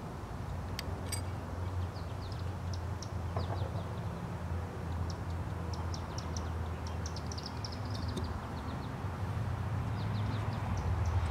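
Small birds chirping in quick series of short, high notes over a steady low hum, with a couple of sharp clicks about a second in.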